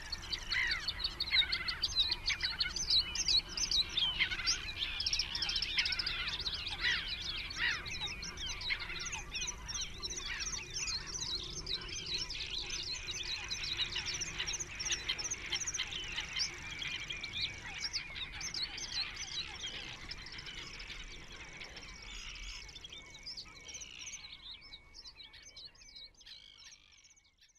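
Many small birds chirping and twittering at once, with short calls overlapping, over a faint low rumble of outdoor noise. The chirping thins out and fades away near the end.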